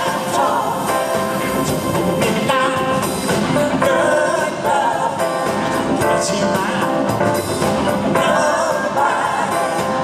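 Live band playing a song, a man singing lead over drum kit, bass and guitars.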